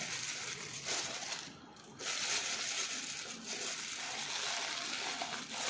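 Thin plastic bag crinkling and rustling as it is handled and shaken to tip almonds out, with a short pause about one and a half seconds in.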